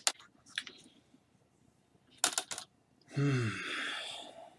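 A few short plastic clicks and taps from handling the laptop's screen parts, then about three seconds in a person's breathy sigh with a falling voice.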